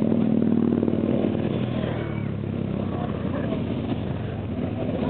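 A column of motorcycles riding slowly past one after another, their engines running steadily. The engine note is loudest in the first couple of seconds as a bike passes close.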